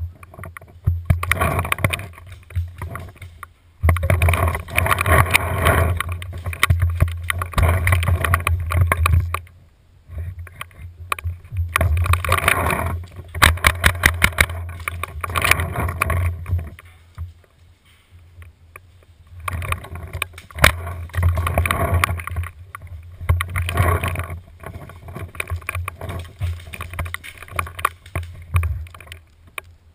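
Bursts of rapid sharp pops from a Tippmann A-5 paintball marker firing, mostly in the middle stretch, over a deep steady rumble.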